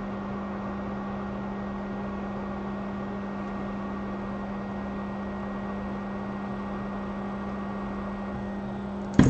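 Steady electrical hum with an even fan-like hiss from running repair-bench equipment, and one short click near the end.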